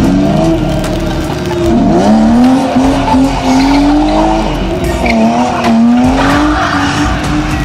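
BMW E36 rally car's engine revving hard, its pitch rising and dipping several times as it drifts through a tight turn, with tyres squealing and skidding on wet tarmac.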